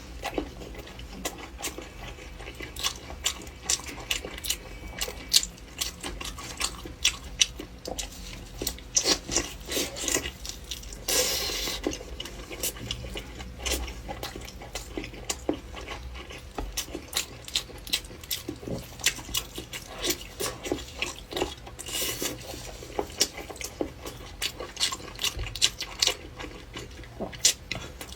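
Close-miked eating sounds: chewing and smacking of meat, with many sharp clicks and small knocks of utensils against the dish. Twice a brief louder rustle stands out.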